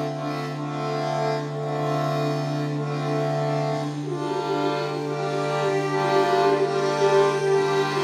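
Free-reed keyboard instrument blown through a hose, holding sustained chords over a steady low drone note; about halfway through the chord changes to a new set of notes.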